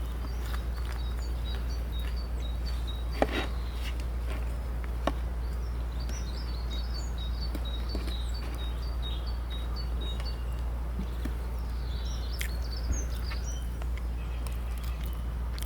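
Small birds chirping in quick runs of short, high, repeated notes, over a steady low rumble of outdoor background noise. A few sharp clicks fall in between.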